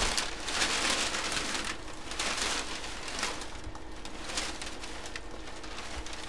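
Packaging rustling in bursts as it is handled, a crinkly hiss that swells and fades several times.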